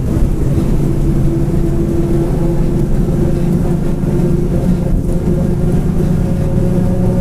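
Mercedes-Benz OF-1722M bus under way, the drivetrain running steadily with a droning whine from the differential held at an even pitch over the engine's rumble.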